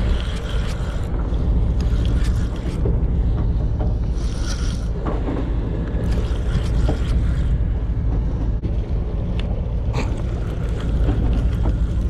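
Charter fishing boat's engine running steadily, with wind buffeting the microphone and water noise, and a few scattered knocks.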